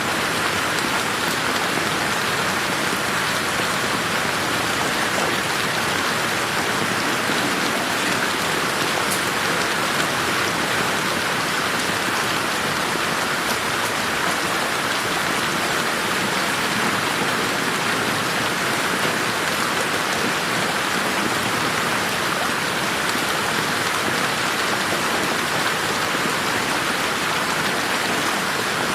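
Steady rain falling on a garden, an even wash of drops with a few individual drop ticks, no thunder.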